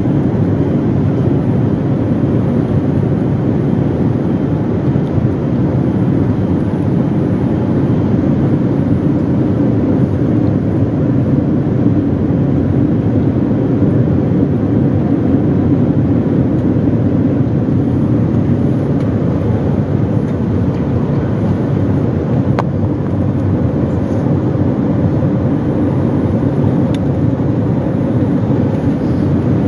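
Steady cabin noise inside a Boeing 787-9 airliner in flight: an even, low rumble of engines and rushing air, heard from a window seat over the wing.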